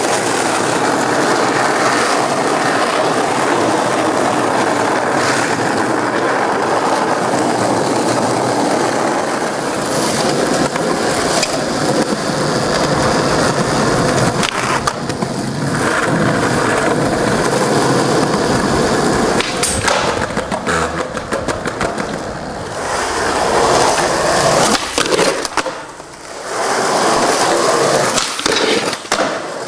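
Skateboard wheels rolling loudly and steadily over rough pavement. In the second half come several sharp clacks of the board striking the ground, from tricks and landings.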